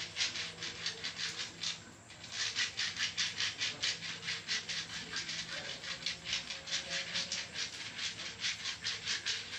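Rapid, even rubbing strokes of a massage on skin, about five strokes a second, with a brief pause about two seconds in.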